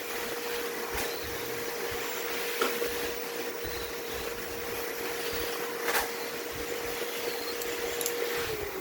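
A machine running with a steady hum and a faint whirring hiss, then winding down in pitch near the end, with two sharp clicks in the middle.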